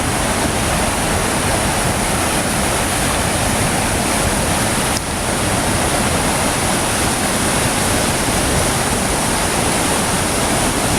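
A rushing river's rapids, a steady loud roar of water with a brief dip about five seconds in.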